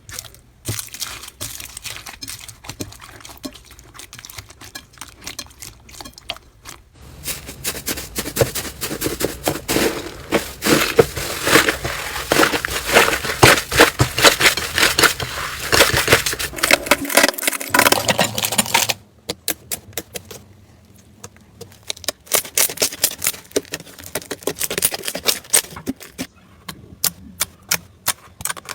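Slime being squeezed and pressed by hand, giving off a dense run of small sticky pops and crackling clicks. The clicks thicken and grow louder from about a quarter of the way in, then thin out again about two-thirds through.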